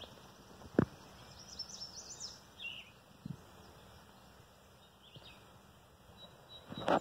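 Outdoor ambience with a few short bird chirps a couple of seconds in, a single sharp knock about a second in, and a burst of rustling noise near the end.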